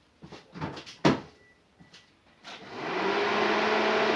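A few clicks and knocks, then about two and a half seconds in an electric radiator cooling fan spins up with the ignition on and runs with a steady whoosh and hum. It runs at once because the coolant temperature sensor wire is disconnected.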